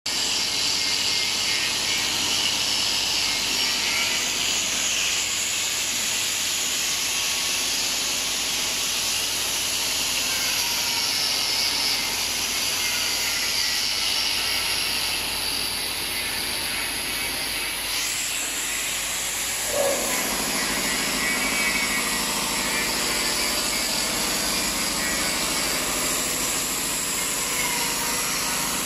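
Automatic vacuum cup sealing machine running: a steady mechanical noise with a strong hiss. The hiss shifts about eighteen seconds in, and about two seconds later there is a single short knock as the lower part of the sound changes.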